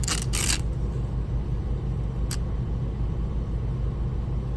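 Motor of a shear-sharpening machine running with a steady low hum as its 600-grit plate spins. Right at the start come two short grinding hisses, the blade of a curved grooming shear touched to the plate to test the 30-degree angle.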